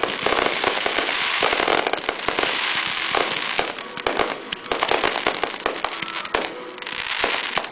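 Aerial fireworks shells bursting in rapid succession: many sharp bangs over a continuous crackling hiss.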